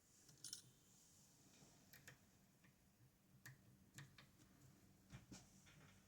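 Faint, irregular small clicks of lock-picking tools working in a West 917 high-pin-count lock.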